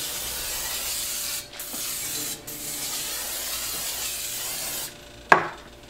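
Aerosol butter cooking spray hissing from the can in three sprays, with two brief breaks, the last and longest running about two and a half seconds. A single sharp knock follows near the end.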